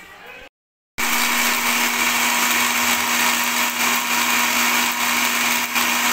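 Electric mixer-grinder running steadily with its dry jar, grinding roasted chickpeas, dried coriander seeds and cumin into powder: a loud steady motor hum under a hissing whir. It starts about a second in, after a brief silent cut.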